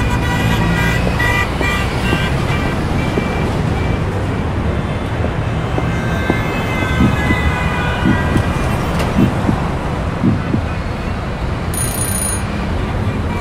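City street traffic noise: a steady rumble of passing vehicles, with a few short dull knocks around the middle and a brief high tone near the end.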